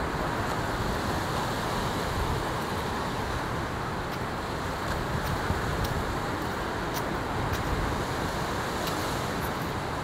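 Steady rushing background noise of a seaside beach, with a few faint ticks in the second half.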